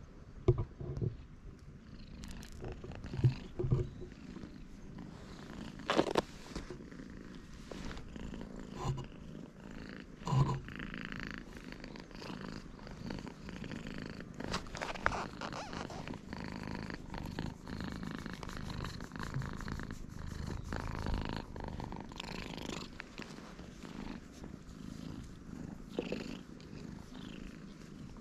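Black-and-white stray cat purring steadily while being stroked. There are several sharp knocks in the first ten seconds, and these are the loudest sounds.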